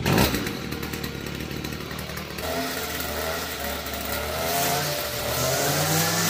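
Petrol string trimmer engine catching on a pull of the starter cord and then running steadily, its pitch climbing a little about halfway through as it is revved.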